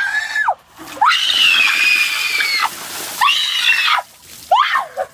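A girl shrieking as a bucket of ice water is dumped over her head, the water splashing down onto the concrete. One long high-pitched scream comes about a second in, followed by shorter shrieks.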